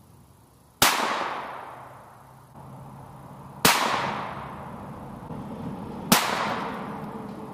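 Three shots from a Ruger Charger .22 LR pistol firing high-velocity CCI Blazer rounds, about two and a half seconds apart, each a sharp crack that echoes and fades over a second or two.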